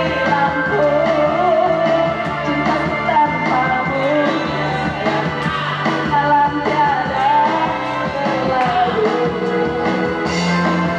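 Live band music with a singer: a wavering vocal melody over sustained instrument chords and a regular drum beat, with the voice dropping out near the end as the instruments carry on.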